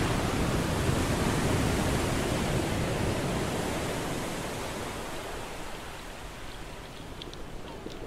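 Steady rushing noise that slowly fades, with a few faint, short high chirps near the end.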